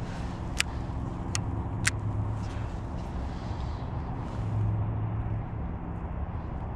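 A steady low motor hum, with three sharp clicks in the first two seconds.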